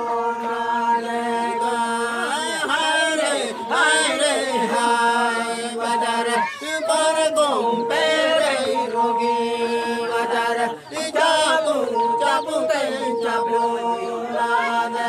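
A group of men chanting a song together, their voices sliding up and down in pitch over a steady held drone note.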